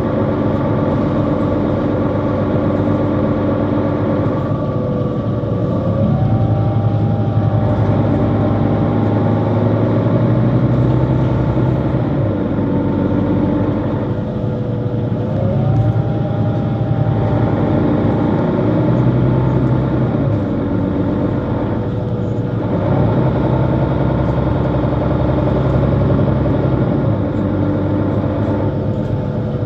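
Mercedes-Benz Citaro C2 city bus's diesel engine and drivetrain running as the bus drives, heard from on board. A whine steps up in pitch four times, about every seven or eight seconds, as the drive changes.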